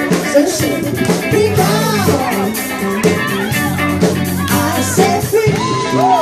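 Live cover band playing an upbeat song: guitar and singing over a steady bass line and drum beat.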